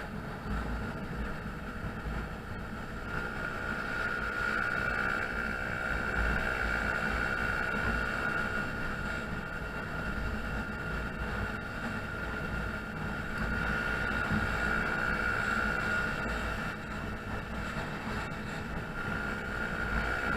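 Honda Zoomer 50 cc four-stroke scooter running along the road at a steady speed: a steady engine and drive whine with a low rumble underneath.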